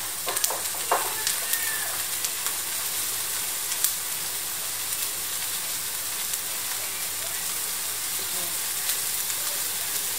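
Chicken pieces and sliced onion frying in a wok, a steady sizzling hiss with a few sharp clicks in the first few seconds.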